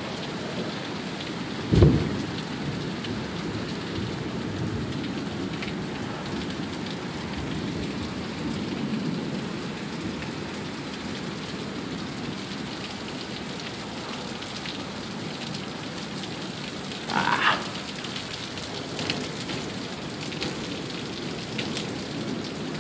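Heavy downpour: steady, hard rain pouring and splashing on surfaces. A sharp thump comes about two seconds in, and a brief louder burst comes about three-quarters of the way through.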